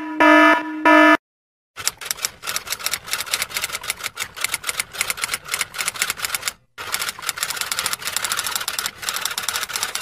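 An electronic alarm beeping in short, evenly spaced pulses stops about a second in. After a brief gap, typewriter keys clack rapidly and continuously, pausing once briefly near the middle.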